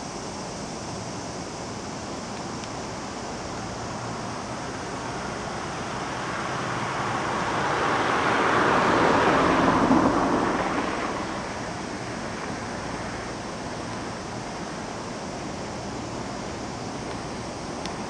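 A vehicle passing by unseen: a rushing noise that swells over several seconds and fades away, over steady outdoor background noise.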